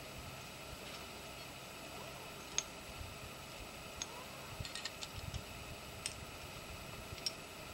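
Scattered light metallic clicks and clinks of climbing gear, carabiners and quickdraws knocking together, a few single ticks and a quick jingling flurry about five seconds in, over a steady faint hiss.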